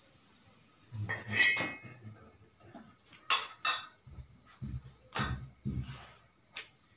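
Metal spatula and pan clattering and clinking as a paratha is turned and the pan handled on a clay wood-fired stove. A burst of clatter comes about a second in, two sharp clinks follow near the middle, then several duller knocks and a last click near the end.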